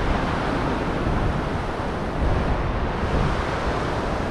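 Surf washing in along a beach under steady wind, with a gusty low rumble of wind buffeting the microphone.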